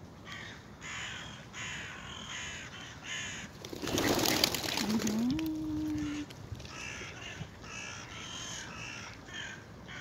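Birds giving short, harsh calls over and over, in two bouts. About four seconds in, a loud, brief rush of noise covers them, followed by a low hum that steps up slightly in pitch.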